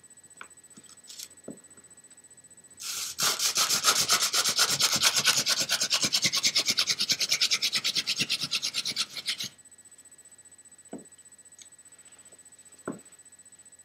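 Hand-drill friction fire: a wooden spindle spun back and forth between the palms, grinding into the notch of a wooden hearth board to build a coal. It starts about three seconds in as a rapid, even rasping and stops suddenly about six and a half seconds later, followed by two light knocks.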